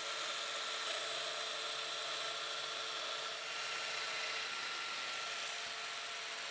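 Festool Domino XL joiner running steadily while it cuts a mortise in a solid pine door stile.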